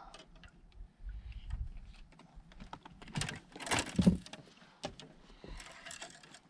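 Scattered light clicks and knocks, irregular, with a louder knock about four seconds in.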